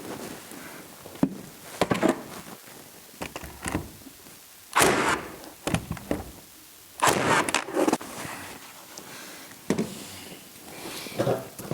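Irregular knocks, bumps and scraping of objects being handled and moved, with two louder scraping rushes about five and seven seconds in.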